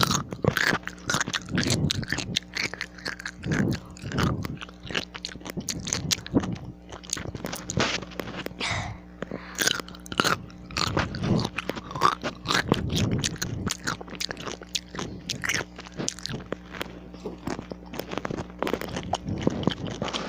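A person biting into and chewing a pickle, with repeated crunches and chewing sounds at an irregular pace.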